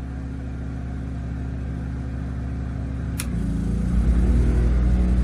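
WEN 3600-watt portable generator running steadily. About three seconds in there is a click, then the engine's pitch shifts and the low hum grows louder and settles as a 16,000 BTU air conditioner kicks on and loads it.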